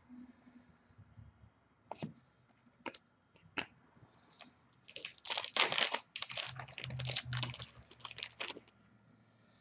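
A few light clicks of cards being handled, then about four seconds of crinkling and tearing from a foil trading-card pack wrapper being opened.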